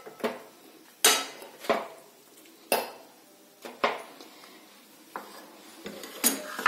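Steel spoon knocking and scraping against a kadhai and a small steel bowl as cooked halwa is scooped out: about five sharp metal clinks at uneven intervals, with softer knocks between them.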